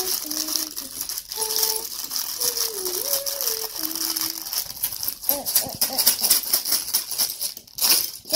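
Small plastic LEGO pieces clattering and clicking irregularly as they are rummaged through and handled.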